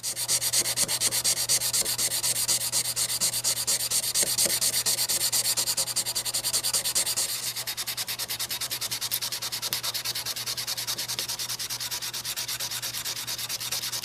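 Hand sanding a steel pocket-knife blade with 240-grit cloth-backed abrasive paper to take off light rust. The scratchy back-and-forth strokes are fast and even, about five a second.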